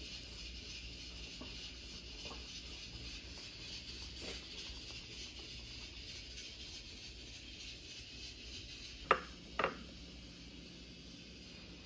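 Clear food storage container of carrot sticks being handled: two sharp clicks about half a second apart near the end, over a faint steady hiss with a few soft ticks.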